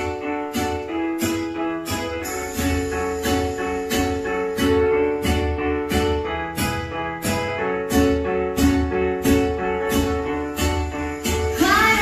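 Music playing through a Sony SA-D40 home theatre system: a regular beat of sharp hits over sustained chords and a steady bass line. A voice starts singing near the end.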